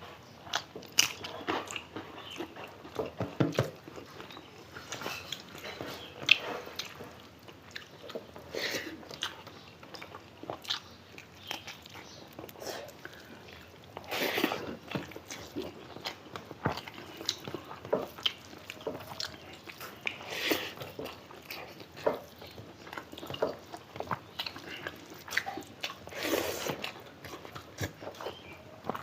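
Close-up eating sounds of people chewing a meal of rice, dal and curry, with irregular short clicks of mouth and food noises.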